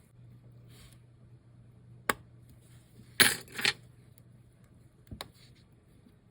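Light metallic clicks and clinks of small watchmaker's tools and parts on the bench: a single click about two seconds in, a louder cluster of clinks around the middle, and another click near the end. A steady low hum runs underneath.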